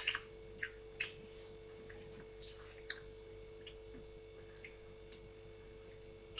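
Quiet mukbang eating sounds of mutton curry and rice: faint wet chewing and mouth smacks with a scattering of small clicks, over a steady faint hum.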